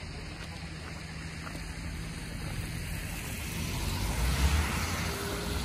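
Car driving on the road, heard from inside the cabin: steady road and engine noise that swells about four seconds in.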